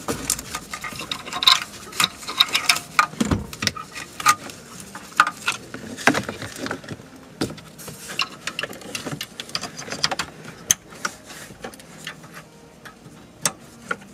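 Plastic wiring-harness connectors and cables rattling and clicking as they are handled and fitted behind a car stereo: irregular clicks and knocks, busiest in the first half, with a heavier knock about three seconds in.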